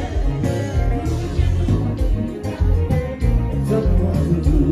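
Live band music with a steady beat, heavy bass, electric guitar and singing.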